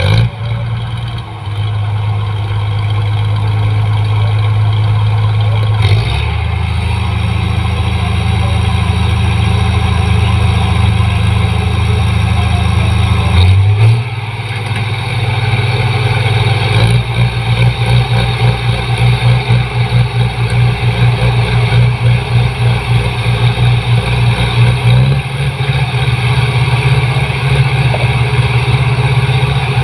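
Rice combine harvester's diesel engine running, its pitch stepping up and down several times as the engine speed changes, with a more uneven, pulsing note in the second half.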